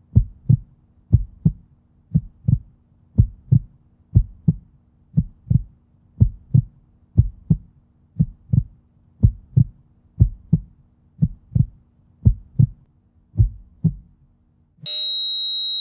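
Heartbeat sound effect: paired low thumps, lub-dub, about one beat a second over a faint low hum. Near the end the beats stop and a loud, steady high-pitched tone begins.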